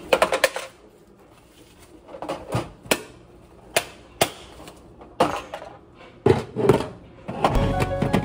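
A series of sharp clicks and knocks as things are handled at a kitchen counter, a few close together at the start and more scattered after. Background music comes in near the end.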